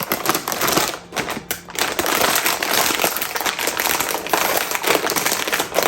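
Foil snack bag of Lay's crisps crinkling and crackling steadily as it is handled and opened.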